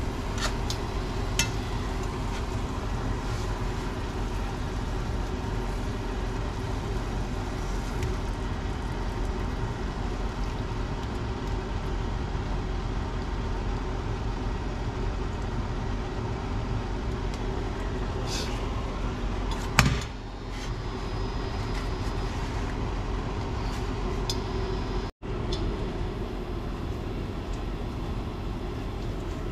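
A steady hum and hiss from the cooking setup. Over it, metal tongs click lightly against a stainless steel frying pan in the first two seconds, and there is a sharp knock of the pan about twenty seconds in.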